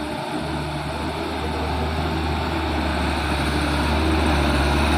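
Diesel engine of a Mitsubishi Canter 125 PS light truck running steadily, growing gradually louder as the truck comes closer.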